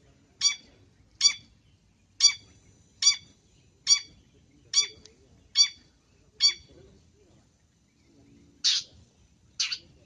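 Long-tailed shrike giving a run of eight short, harsh calls, evenly spaced at a little under one a second. After a pause of about two seconds come two rougher, noisier calls near the end.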